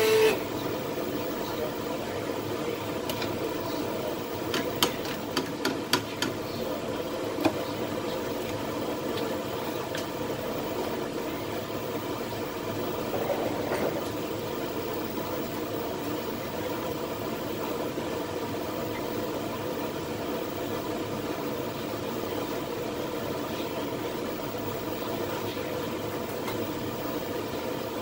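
Steady rumbling hiss of water boiling in the lower pot of a double boiler, with a handful of sharp clicks about five to seven seconds in.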